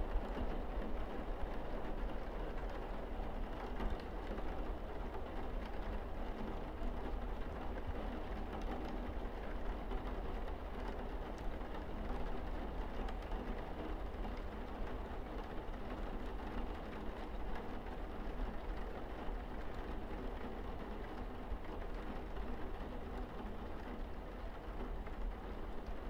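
Steady rain falling on a roof and windows, an even wash of noise with a deep rumble underneath.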